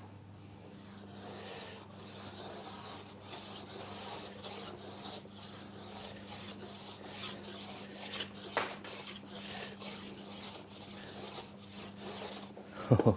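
Stanley No. 60½ low-angle block plane shaving wood, stroke after stroke, with one stronger stroke a little past the middle. The freshly adjusted blade is taking very thin shavings, not full width.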